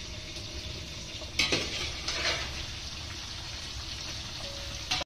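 Chicken pieces sizzling as they fry in browned onion in a cooking pot, with a spoon scraping against the pot twice, about a second and a half and two seconds in.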